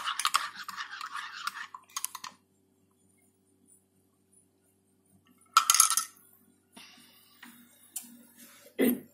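A metal spoon stirring Milo in a mug, a fast run of clinks and scrapes against the sides that stops about two seconds in. A short loud rustle-like noise comes about halfway through, and a brief loud knock near the end.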